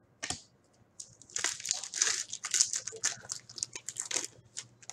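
Crinkling and tearing of a foil trading-card pack wrapper as a pack of hockey cards is opened, with many short clicks and crackles.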